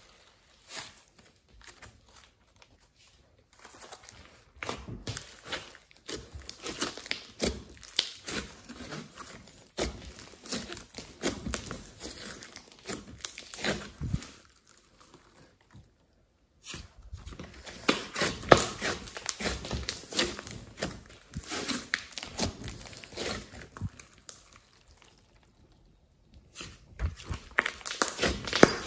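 Glossy slime mixed with clay being stretched, squeezed and poked by hand, giving sticky clicking and crackling. The sound comes in bursts with a few quiet pauses.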